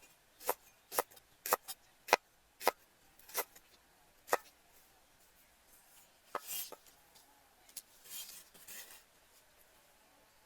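A knife chopping on a cutting board, about eight sharp strokes roughly two a second, followed a couple of seconds later by a few rough scraping sounds.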